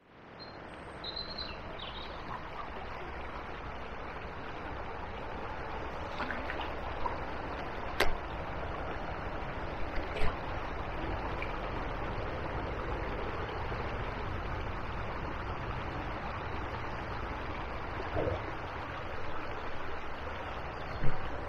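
Small river's flowing water, a steady rush, with a few short sharp clicks about eight and ten seconds in and again near the end.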